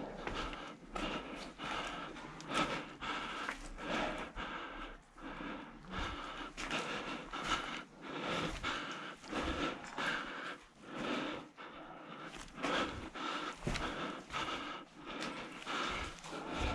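A person breathing hard close to the microphone, with rhythmic footsteps at about two a second.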